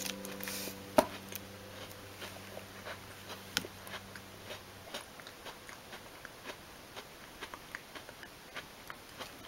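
A person chewing a mouthful of crunchy chocolate-coated snack close to the microphone: scattered small crunching clicks, with one sharper crunch about a second in.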